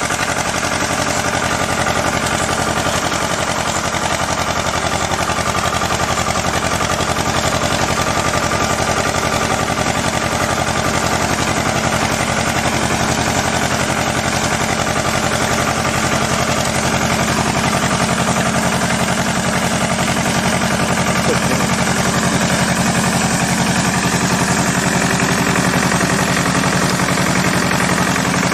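Farm tractor engine running steadily close by, with a fast, even chatter and a low hum that grows a little stronger past the halfway point, as it pulls a ginger planter across the field.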